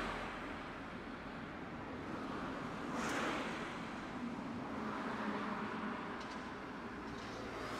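Street traffic at a city tram stop: a steady hum of passing road vehicles, with one vehicle swelling past about three seconds in and another rumbling by a couple of seconds later.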